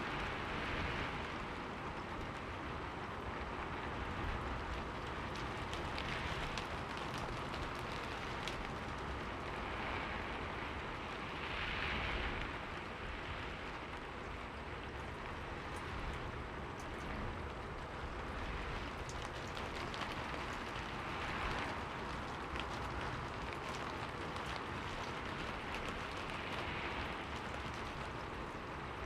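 Steady rain falling: an even hiss dotted with the ticks of individual drops, swelling gently every few seconds.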